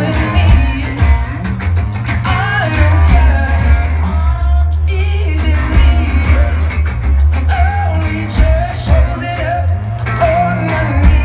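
Live rock band playing through a festival PA: a male voice singing over electric guitars and a heavy, booming bass, heard from within the crowd.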